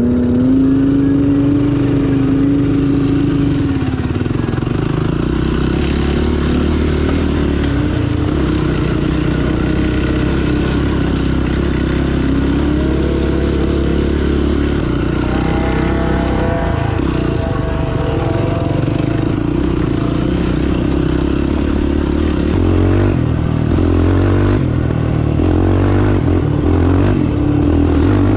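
Off-road side-by-side engine running while driving, the revs rising and falling with the throttle.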